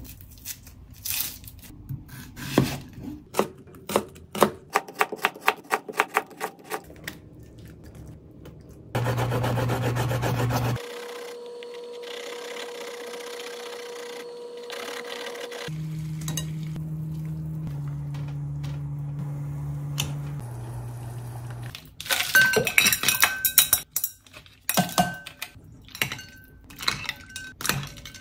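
Kitchen food-prep sounds: a run of quick knife and hand clicks on onion, a couple of seconds of running tap water, then a steady hum that steps in pitch a few times. It ends with a wire whisk clinking rapidly against a glass bowl.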